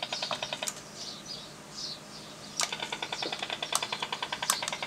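Radar interference on the 17-metre band heard through a Yaesu FT-817 transceiver's speaker: a rapid, even train of pulses, about ten a second. It drops out for about two seconds, leaving receiver hiss, then returns, with a few sharp clicks along the way.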